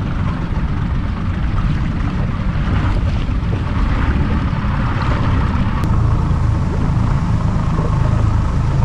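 Boat running under way across the water: a steady low engine and hull rumble, with wind buffeting the microphone.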